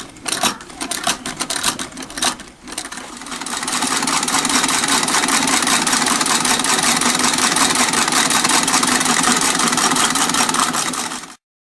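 1899 Singer Model 27 sewing machine: a few clicks as it is set going, then running steadily with a fast, even clatter for several seconds before it stops abruptly near the end.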